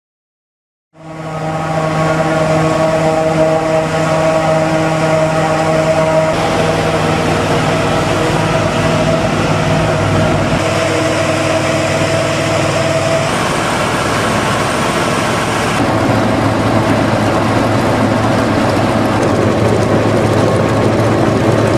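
Claas Jaguar SF80 self-propelled forage harvester running under load while chopping maize, with a tractor pulling a forage wagon alongside. A steady, loud machine drone starts about a second in, and its tone shifts a few times.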